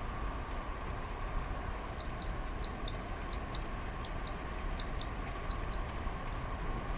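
Zitting Cisticola (a small grass warbler) calling: six quick pairs of short, sharp, high notes at an even pace, starting about two seconds in and ending near six seconds.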